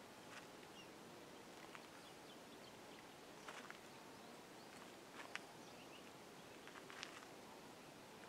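Near silence: faint outdoor ambience with a steady soft hiss, broken by a few scattered soft clicks and faint short chirps.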